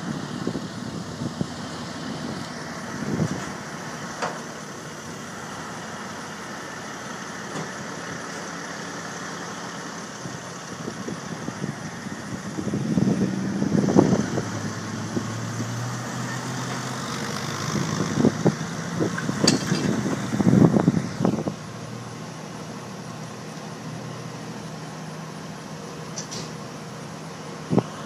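Highway traffic passing close by: a vehicle towing a fifth-wheel camper swells past about halfway through, and more vehicles go by a few seconds later, over a steady idling engine.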